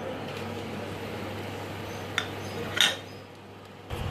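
Steel kitchenware clinking as a plate and a stainless-steel mixer-grinder jar are handled, over a steady low hum. The loudest clink comes a little under three seconds in, and the hum cuts off just before the end.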